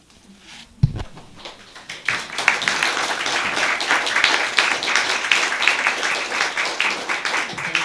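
Audience applauding: a dense clatter of many hands clapping that builds about two seconds in, holds, and tails off near the end. A single low thump comes about a second in, before the clapping starts.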